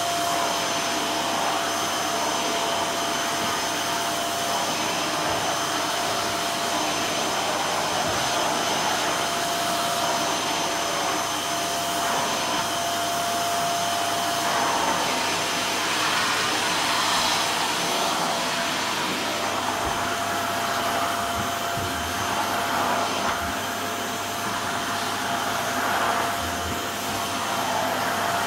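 Canister vacuum cleaner running steadily, a constant whine over its rushing suction, as the floor nozzle is worked over carpet.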